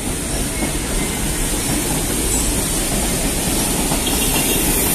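SuperVia CNR 3000-series electric train moving through the station: a steady rumble of wheels on the rails with a high hiss, growing slightly louder.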